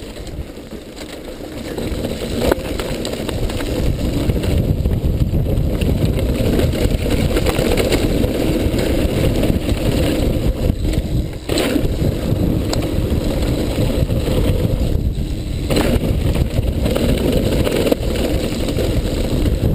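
Mountain bike descending fast on a rough dirt trail: a loud, steady rumble of wind on the microphone and tyres on dirt and stones, building about two seconds in, with a few sharp knocks from bumps.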